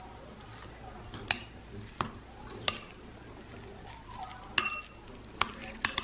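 A metal spoon mixing rice bibimbap in a ceramic bowl: a soft scraping and stirring, broken by several sharp clinks of the spoon against the bowl.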